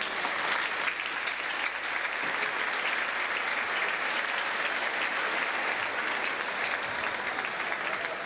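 Audience applauding in a sports hall: many hands clapping in a steady, dense patter.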